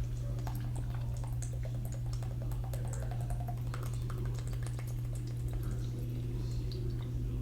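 Quiet eating: faint scattered small clicks and wet mouth sounds of someone eating noodles, over a steady low hum.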